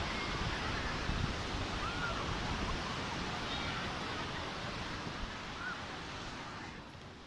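Seaside wind ambience: wind buffeting the microphone over a steady hiss of distant surf, with a few faint short high cries. It drops quieter shortly before the end.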